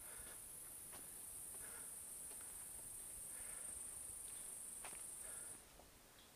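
A steady, high-pitched insect drone from the surrounding forest that cuts off suddenly near the end, with faint short calls and a few light clicks in the background.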